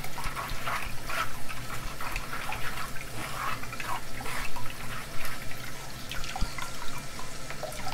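Blended basil, spinach and chicken broth being strained through a sieve: liquid pouring and dripping through the mesh in an irregular patter.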